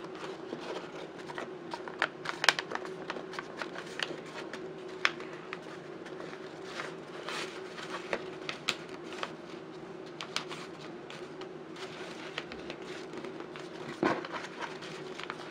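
Brown paper being folded and pushed into shape by hand: irregular crinkles and crackles of creasing paper, loudest about two and a half seconds in and again near the end, over a steady low hum.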